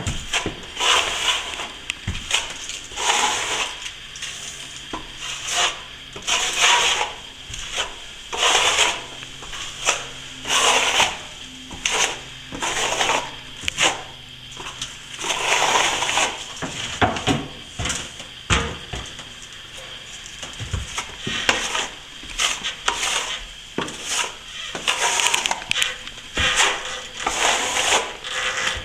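Steel plastering trowel scraping and smoothing over fresh plaster on a wall, in repeated strokes about once a second.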